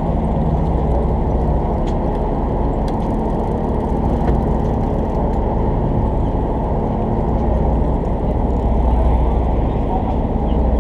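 Steady low drone of a fishing boat's motor running, with an even hum that holds without change.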